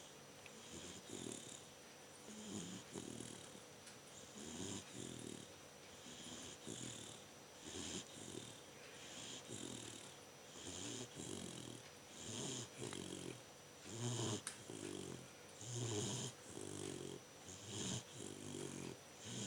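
A three-month-old Bernese mountain dog puppy snoring in her sleep, a snore on each breath in a steady rhythm, louder in the last few seconds.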